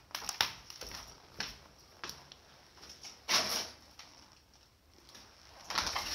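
Footsteps crunching over debris and litter on the floor: irregular short crunches and scuffs, with two longer crunching scrapes, one a little past halfway and one near the end.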